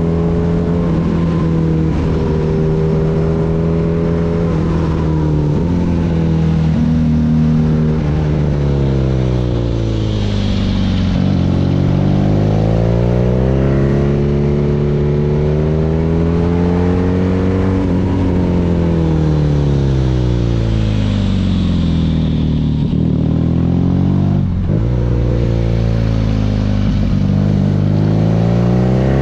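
BMW R nineT's boxer twin running through an Akrapovic exhaust while the motorcycle is ridden. The engine note climbs and falls again and again as the rider accelerates and backs off, with brief dips where the revs drop sharply.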